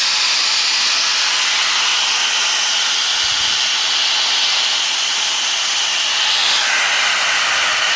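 INGCO 750 W 4-inch angle grinder running at speed: a steady high whine with a hiss, which shifts slightly in pitch about six and a half seconds in.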